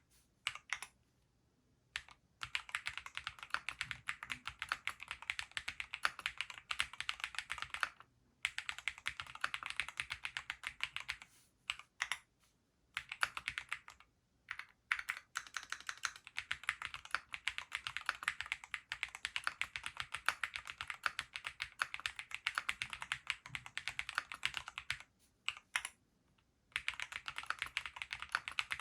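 Graystudio Space65 III custom mechanical keyboard with Gateron Pure Berry linear switches being typed on quickly: long runs of rapid keystrokes, broken by a few short pauses of about a second.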